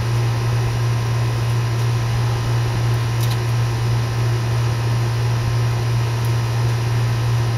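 Steady low machine hum with an even fan-like whoosh that does not change, and a faint tick about three seconds in.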